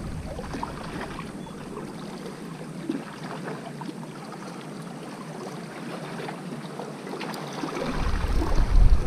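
Wind buffeting the microphone over a steady wash of small sea waves lapping against breakwater rocks. The low wind rumble eases just after the start and returns strongly about eight seconds in.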